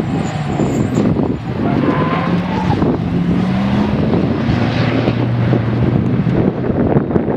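Track cars' engines running hard as they drive through a series of corners, one engine note climbing a couple of seconds in, with wind buffeting the microphone.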